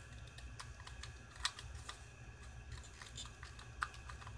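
Faint, irregular plastic clicks of a YJ Guanlong Skewb puzzle's pieces as its corners are turned by hand.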